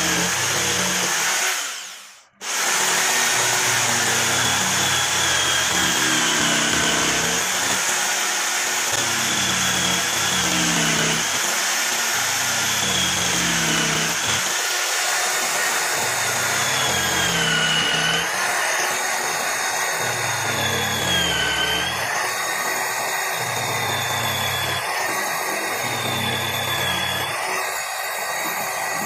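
Electric jigsaw running and cutting through a wooden board: a steady motor whine over the rattle of the reciprocating blade, the pitch sagging now and then as the blade bites. The sound cuts out briefly about two seconds in.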